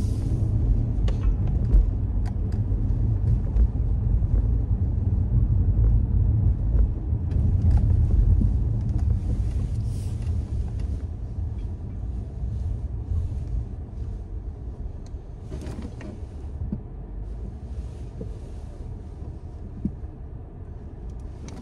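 Car driving, heard from inside the cabin: a low engine and road rumble that grows quieter through the second half as the car slows.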